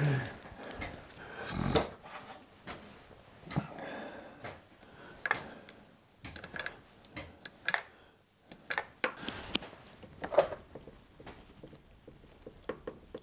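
Scattered metallic clicks, knocks and scrapes of a socket wrench working the bolts under the lower cowling of a Suzuki DF4 outboard motor, with a louder knock about two seconds in.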